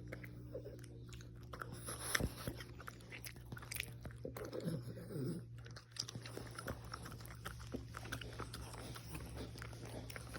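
A napping dog's congested nose sniffling: irregular small wet clicks and snuffles over a steady low hum.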